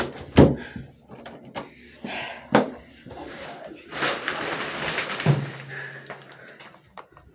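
A run of sharp knocks and bumps with indistinct voices, then a burst of hiss about four seconds in and a low steady hum a second later.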